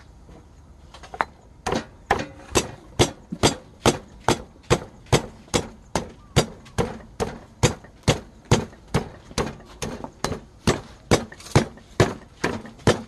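Stone pestle pounding sliced lemongrass and chilli in a heavy stone mortar, grinding a spice paste. The strikes start about a second in and keep a steady rhythm of about two a second.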